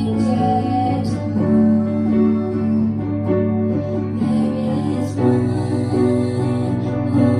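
Girls singing a song into microphones over instrumental accompaniment, with long held notes.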